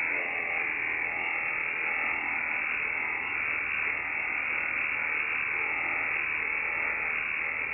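Yaesu FTdx10 HF receiver on the 80-metre band in lower sideband, its speaker giving out steady noise that is man-made interference radiated by a computer-controlled washing machine's AC variable-speed motor drive.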